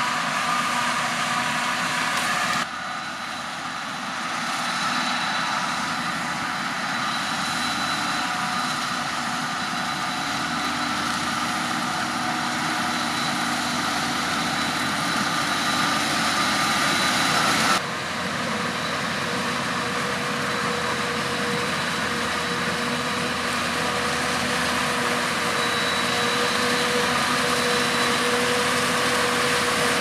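Claas Jaguar 970 forage harvester chopping maize, with the engines of the Valtra tractor towing it and the John Deere tractor carting alongside. Steady heavy machinery noise with high whining tones above it, shifting abruptly about three seconds in and again near eighteen seconds.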